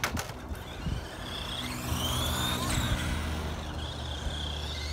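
Dromida SC4.18 1/18-scale electric RC short course truck's motor and plastic drivetrain whining, the pitch rising and falling several times with bursts of throttle. A few sharp clicks come right at the start.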